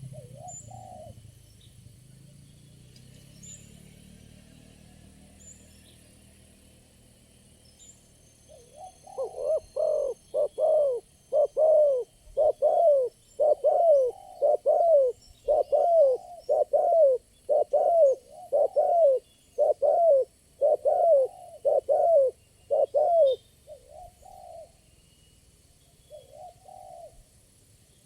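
Spotted dove cooing: a faint coo at the start, then from about nine seconds in a long, loud run of rapid coos, roughly one and a half a second, tailing off into a few softer coos near the end. Faint high chirping runs behind it.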